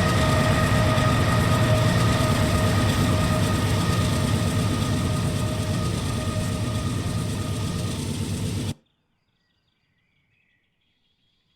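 A train rolling past on the rails, a loud steady rumble with a high ringing tone, slowly fading. It cuts off abruptly about nine seconds in, leaving near silence.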